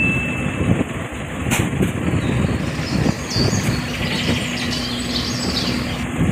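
An engine running with a low rumble, with a steady hum coming in a little past halfway.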